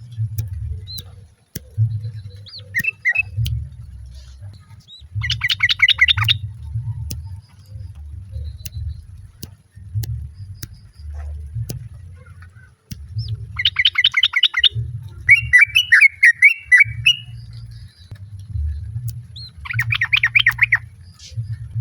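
Yellow-vented bulbuls (trucuk) calling: three short bursts of fast, rapidly repeated chattering notes, with a warbled phrase right after the second burst. A low, uneven rumble runs underneath.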